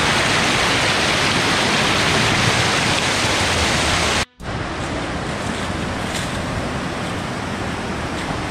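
Mountain stream rushing over a small rocky cascade, a steady loud hiss of water. It cuts out for an instant about four seconds in and comes back softer.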